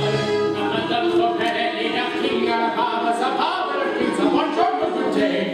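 Ensemble cast of a stage musical singing together in full chorus, many voices on sustained and moving notes, breaking off near the end.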